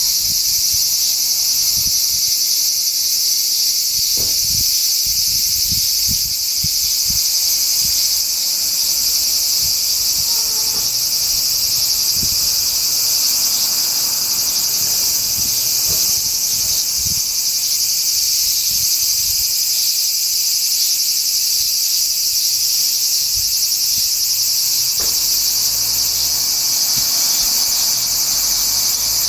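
A chorus of cicadas calling: a dense, steady high-pitched buzz that holds without a break.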